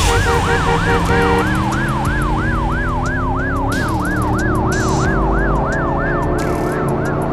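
Ambulance siren sound effect wailing up and down quickly, about three sweeps a second, growing fainter near the end.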